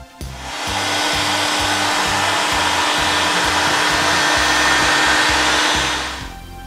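Earlex heat gun running: a steady rush of blown air with a faint low hum. It starts just after the beginning and cuts off about six seconds in.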